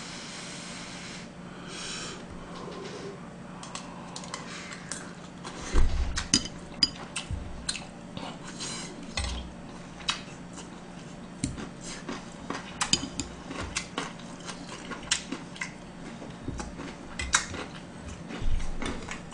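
A metal spoon and chopsticks clink and scrape against a black earthenware soup bowl during eating, with chewing. The clinks start about five seconds in and come in irregular clusters, with a few dull thumps and a steady low hum underneath.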